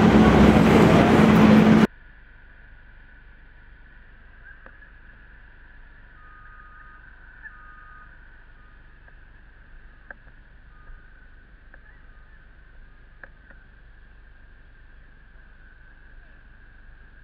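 A loud engine running steadily with a low hum cuts off abruptly about two seconds in. The rest is faint, muffled background with a few light clicks.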